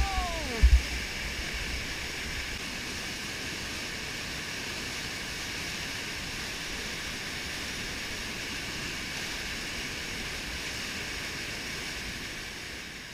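Whitewater rapid rushing steadily over rock. Right at the start there is a short falling shout and two low thumps, and the rush fades near the end.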